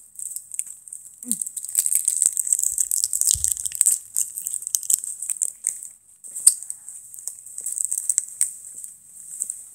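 Handling noise from a handheld phone: clothing rubbing and scratching against its microphone as it is moved about, a continuous rustle with many small clicks. There is a dull knock about three and a half seconds in.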